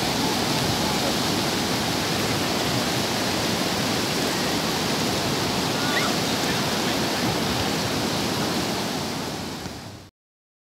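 Sea waves breaking on the shore, a steady wash of surf that fades and cuts off just before the end.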